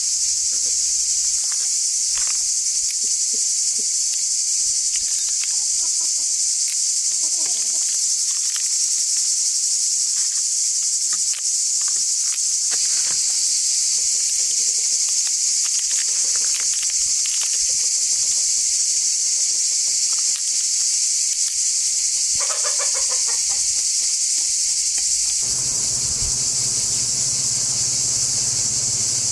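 Steady high-pitched chorus of insects buzzing, with chickens clucking faintly now and then.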